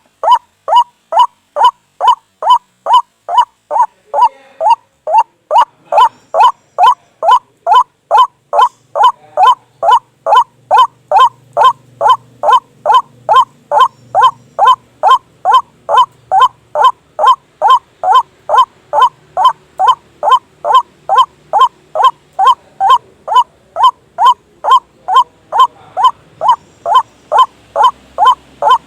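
White-breasted waterhen (ruak-ruak) call, one short note repeated evenly about twice a second without a break, from a recording used as a trapping lure.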